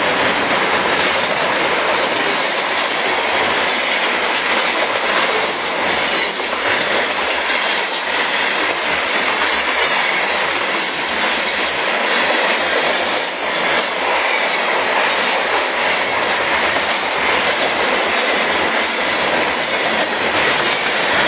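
Freight train of long boxcars rolling past close by: a steady, loud rush of steel wheels on rail that does not let up.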